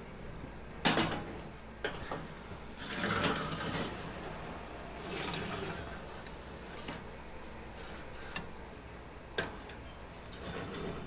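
Kitchen handling sounds: several sharp knocks and clatters, the loudest about a second in, with short scraping or rustling stretches around three and five seconds in.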